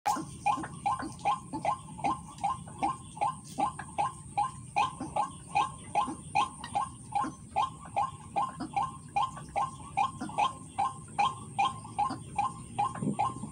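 White-breasted waterhen (ruak-ruak) calls: a monotonous run of harsh 'kwak' notes repeated about two and a half times a second without a break.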